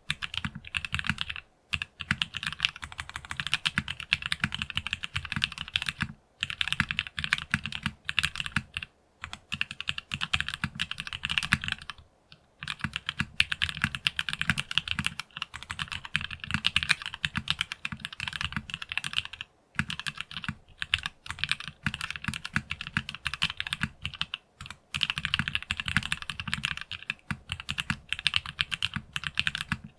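Continuous fast typing on a Geonworks Frog Mini mechanical keyboard with factory-lubed Gateron North Pole linear switches, an FR4 half plate and PBT keycaps. Rapid key clacks come in runs, broken by short pauses every few seconds.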